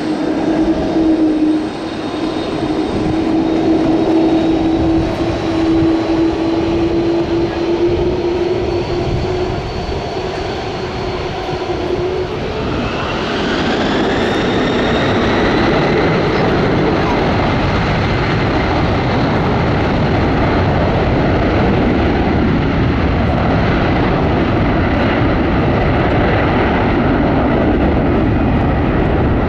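McDonnell Douglas MD-11 freighter's three turbofan engines: a steady low whine at first, then about twelve seconds in they spool up to takeoff thrust, a rising whine over growing jet noise. The noise then stays loud and steady as the aircraft rolls down the runway.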